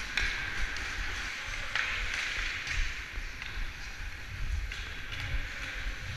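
Ice skate blades scraping and hissing on the ice, swelling and fading with each stride, close up, with a low rumble and a couple of sharp clicks.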